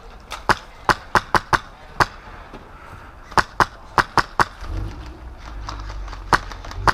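Airsoft gunfire in single shots: about a dozen sharp cracks at irregular intervals, several in quick clusters, with a low rumble rising underneath from about two-thirds of the way in.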